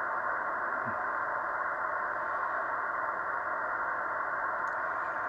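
Steady hiss of static, muffled with no highs, unchanging throughout.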